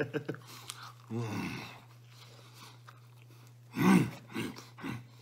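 A man chewing and biting into pizza close to the microphone, with small crunches and mouth clicks. Two short wordless vocal sounds break in, one about a second in and a louder one about four seconds in.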